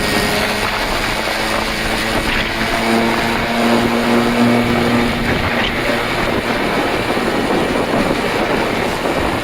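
Honda DJ-1 RR scooter's 50cc two-stroke engine running, its note rising slightly about three seconds in, after a Kitaco high-speed variator with 8.5 g rollers, new plug, plug cable and gear oil have been fitted and the muffler cleaned.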